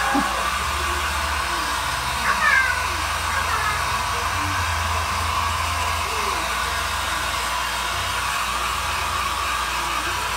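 Hand-held hair dryer blowing steadily with a low motor hum while a kitten mews under it. The clearest mew, a short falling cry, comes about two and a half seconds in, with fainter ones after.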